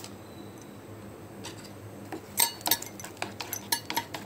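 A spoon clinking against the side of a bowl as egg batter is stirred briskly, a quick irregular run of clinks that starts a little past halfway.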